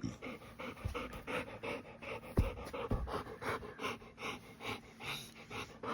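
Dog panting fast and steadily, about four breaths a second, with a few soft low bumps.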